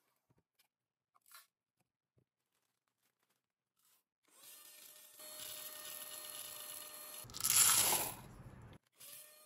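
Small cordless handheld vacuum winding down at the start, then after a few quiet seconds running again with a steady whine; about seven seconds in comes a loud rattling rush of plastic beads being sucked into its canister, which cuts off suddenly.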